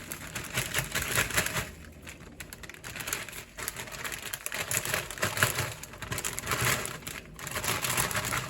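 Popcorn chicken bites tipped from a plastic bag into a pan: the bag crinkling and the pieces rattling in with a dense, irregular clatter.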